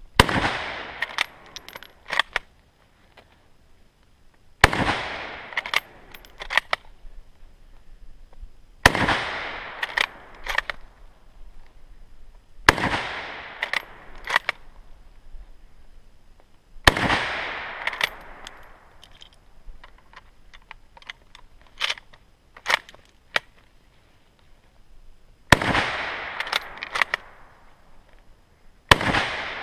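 K98k Mauser bolt-action rifle firing 8mm Mauser military surplus rounds: seven shots about four seconds apart, with a longer pause of about eight seconds after the fifth. Each shot rings on for about a second and is followed by several sharp clacks as the bolt is worked to chamber the next round.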